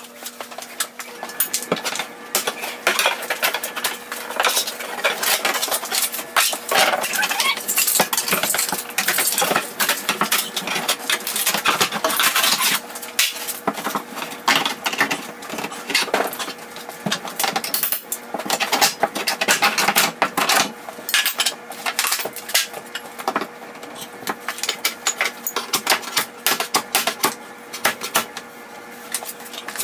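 A flat metal pry bar scraping and levering a wallboard panel off the wall, with dense, irregular clatter, scraping and cracking as the board tears away. A faint steady hum runs underneath.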